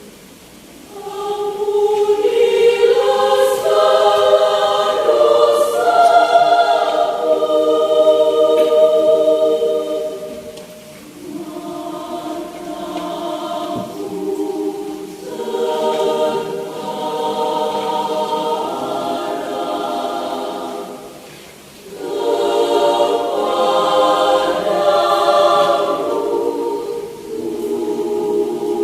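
Mixed adult choir singing in several parts, holding long chords in phrases that swell and fade, with short breaks between phrases about eleven and twenty-one seconds in.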